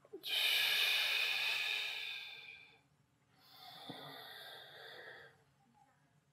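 A man's long audible breaths during a floor exercise: a loud breath that fades over about two and a half seconds, then, after a short pause, a second, quieter breath. A soft knock sounds during the second breath.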